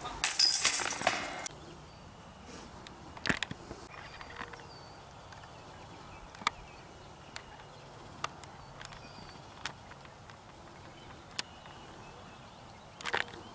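Chains of a disc golf basket jangling for about a second as a disc or discs rattle through them, then quiet open-air background with scattered faint clicks.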